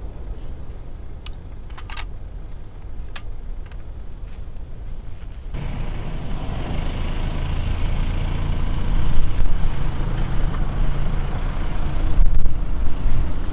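A car on the move: low engine and road rumble with a few sharp clicks in the first seconds, then an abrupt jump to a much louder, fuller engine, tyre and wind noise that swells.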